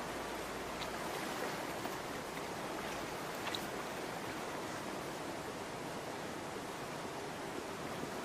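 Steady rush of running water, with a couple of faint ticks about a second and three and a half seconds in.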